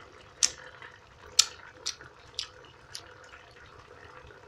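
Beans and sausage simmering in a little water in a frying pan, with sharp wet pops of bursting bubbles about every half second, over a faint steady hum.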